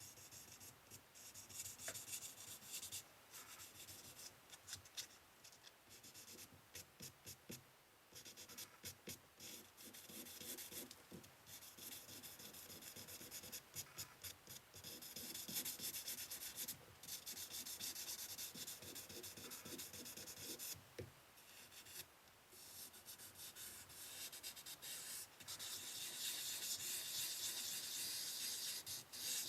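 Wet sanding a fork by hand with waterproof sandpaper and water: a soft rasping hiss in short back-and-forth strokes, which become steadier and a little louder toward the end.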